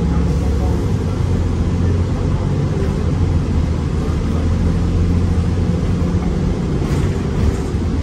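City bus engine and drivetrain running as the bus pulls away from a stop, heard from inside the passenger cabin: a steady low drone with road noise.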